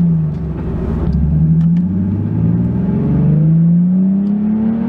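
Nissan 370Z's 3.7-litre V6 through an Auto Dynasty cat-back exhaust, heard from inside the cabin, accelerating through the gears of its manual gearbox. The engine note climbs, drops back at each upshift, and climbs again, several times over.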